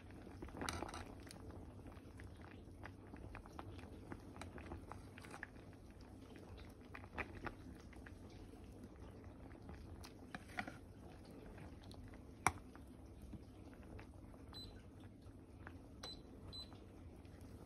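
A pot of fish sinigang (sour fish soup with vegetables) boiling, faint bubbling with scattered small pops and clicks; one sharper click about twelve seconds in.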